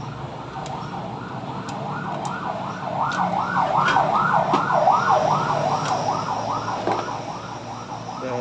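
Emergency vehicle siren in a fast yelp, its pitch sweeping up and down about three times a second, growing louder about three seconds in and fading again toward the end. A few light clicks sound over it.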